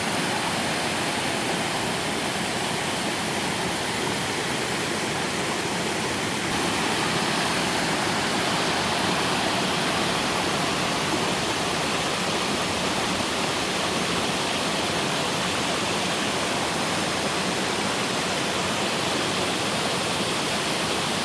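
Mountain waterfall pouring into a pool: a steady, dense rush of falling water, a little louder from about six seconds in.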